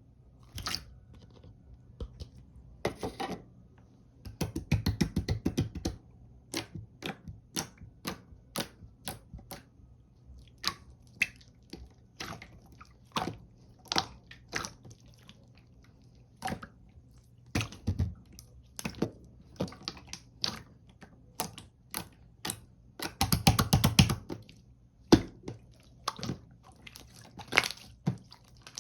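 Pearl marbling slime being pressed and stretched by hand, giving a run of sticky clicks and pops. Two stretches of rapid crackling stand out, about five seconds in and again some twenty seconds later.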